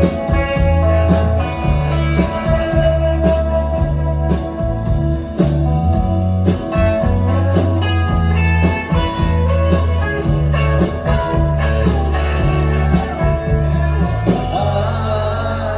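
A live rock band playing an instrumental passage of a song: guitars over a held bass line, with regular drum strokes. A wavering guitar line rises near the end.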